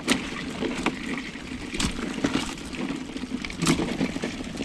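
Three sharp clicks or knocks, roughly two seconds apart, over a steady low rumble.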